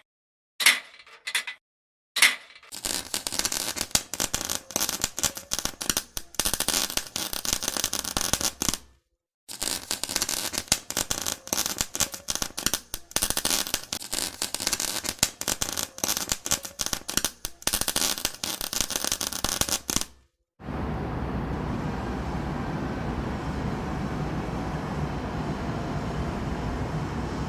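A few sharp metallic clinks, then the dense crackle of an electric welding arc in two long runs, broken by a short pause about nine seconds in. About twenty seconds in the crackle cuts off and a steady low rumble takes over.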